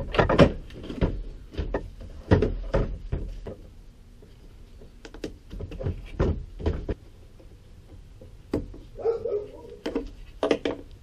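Irregular knocks and clicks of hand tools and hard plastic as a car's headlight assembly is unbolted and worked loose, with a short scraping rub about nine seconds in.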